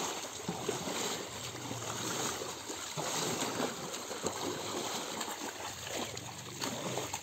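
Shallow pond water sloshing and splashing as people work by hand in it, a steady run of small, irregular splashes.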